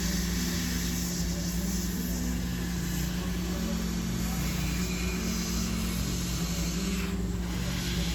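Background music: low held notes that shift pitch every second or so, over a steady hiss.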